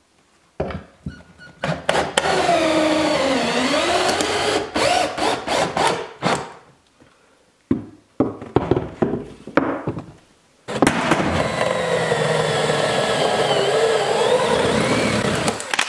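Handheld drill driving 4-inch screws through a wooden corbel into the wall in several trigger pulls: long runs in which the motor's pitch sags under load and recovers, with short stop-start bursts between them. The drill is being pushed past its limit on this job and gives out.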